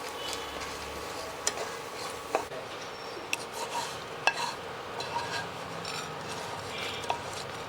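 A spatula stirring and scraping dried red chillies, coriander seeds and cumin roasting in a pan, with scattered light clicks of the spatula against the pan.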